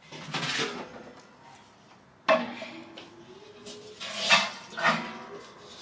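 Large aluminium and stainless-steel cooking pots clanking and scraping as they are handled. A sharp clang a little over two seconds in leaves the metal ringing briefly, and two more clanks follow near the end.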